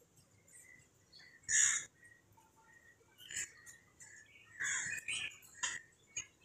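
Small birds chirping in short calls, mixed with a metal spatula stirring and scraping potatoes in a wet curry in a pan, in a few brief bursts.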